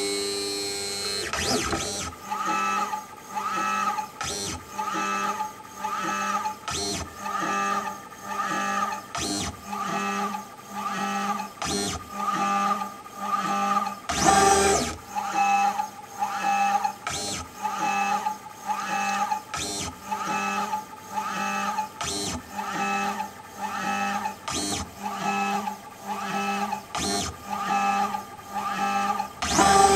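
Three-axis pick-and-place gantry driven by linear motors, running through rapid repeated moves: a regular stream of short pitched motor whines, about one and a half a second, with a sharper click about every two and a half seconds.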